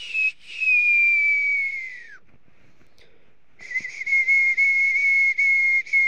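A dog whining in high, thin cries: a short whine, then a long one that falls in pitch as it ends. After a pause of about a second and a half, a second long whine starts, held at one pitch with little breaks in it.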